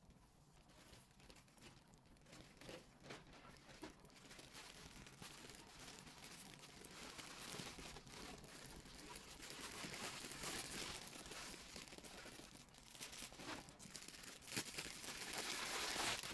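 Thin plastic packaging crinkling and rustling as it is handled and pulled open, with scattered sharp crackles. It grows louder toward the end.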